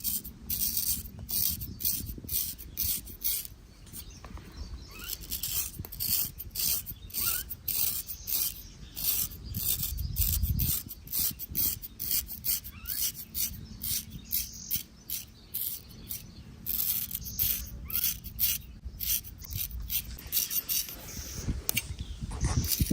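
Straight razor scraping through hair and stubble in short repeated strokes, about two or three a second.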